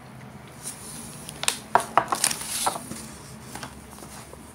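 Small items clinking and knocking as a hand rummages in a cardboard box of cosmetics, with a cluster of sharp clicks about one and a half to two and a half seconds in.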